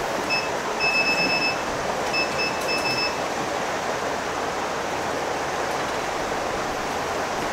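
Electronic beeps from a hot-air rework station: one short beep, a longer beep of nearly a second, then a few quick beeps, all at the same high pitch, over a steady airy hiss.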